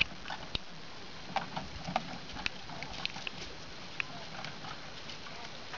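Miniature horse trotting in harness and pulling a two-wheeled cart on grass: scattered light taps and clicks over a steady background hiss, thinning out after about four seconds.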